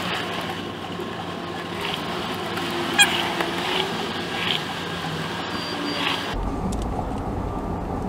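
Plastic clicks and taps from a power window master switch assembly being pried and worked loose from a car door's armrest panel, the sharpest click about three seconds in, over steady background noise.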